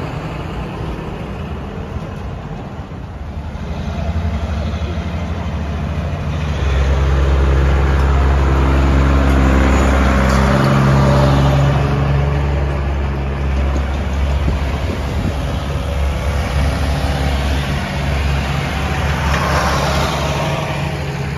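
Diesel tractor engines idling steadily, one much louder for several seconds around the middle, with a passing vehicle briefly near the end.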